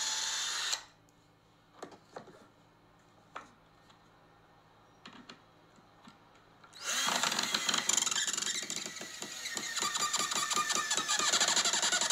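Cordless drill boring into plywood, stopping just under a second in. After a few small taps, it runs into the plywood again from about seven seconds in, with a rapid pulsing.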